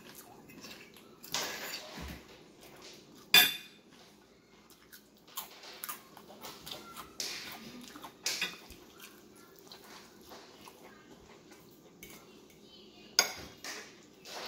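Metal fork clinking and scraping against a ceramic plate of rice and chips as food is picked up, in scattered sharp clicks; the two loudest clinks come about three seconds in and near the end.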